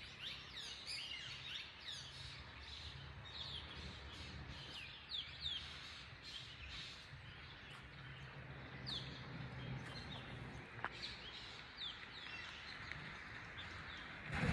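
Several wild birds chirping and calling: many short, quick, downward-sweeping chirps from different birds, over a faint low steady hum.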